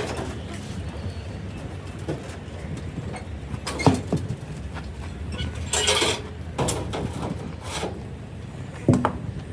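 An engine running steadily with a low rumble, with two sharp knocks and a few short scraping or clattering noises over it.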